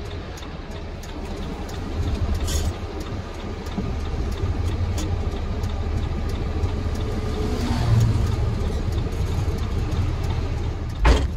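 Truck running along a road, heard from inside its cab as a steady rumble of engine and tyres that grows a little louder about two seconds in. A single sharp thump comes near the end.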